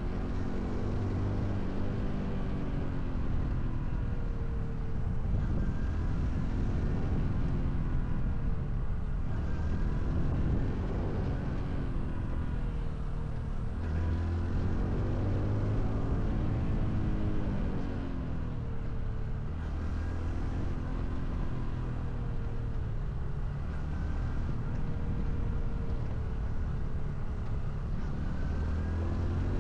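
Honda CT125 Hunter Cub's 125 cc single-cylinder four-stroke engine under way. Its revs climb and drop back several times as the bike accelerates through the gears and eases off, over a steady rushing noise.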